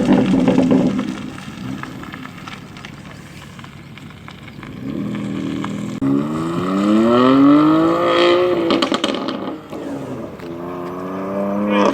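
BMW M3 Competition (F80) twin-turbo straight-six with an M Performance exhaust, loud at first and then easing off into crackles. About six seconds in it accelerates hard, the engine note climbing steadily in pitch, then lifts off with a burst of exhaust crackles and pops; a second climb in pitch begins near the end.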